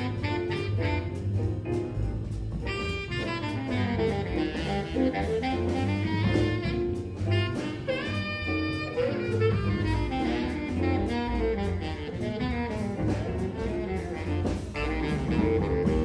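Jazz music: a saxophone lead over bass and drums with a steady beat.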